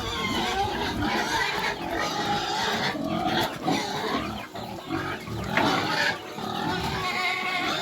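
A pig vocalizing almost without pause, its pitched calls wavering up and down: the sound of a contented pig.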